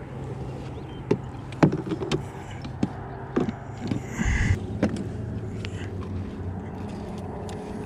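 Knocks, clicks and a short scuffle as a freshly landed largemouth bass, a landing net and a plastic measuring board are handled against a plastic kayak, over a steady low hum. The knocks come irregularly through the first five seconds, with a brief scrape and thump a little past four seconds in.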